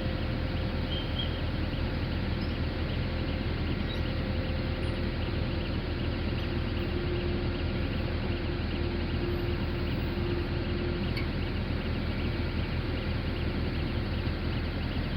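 Heavy construction machinery's diesel engine running steadily at an even speed, with a faint higher hum for a few seconds in the middle.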